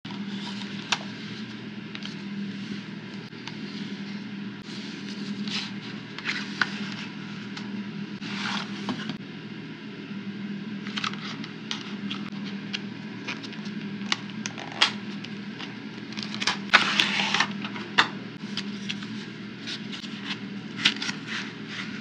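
Packaging being handled and opened: a cardboard box and its clear plastic tray scraping, rustling and clicking in short bursts, busiest about three quarters of the way through, over a steady low hum.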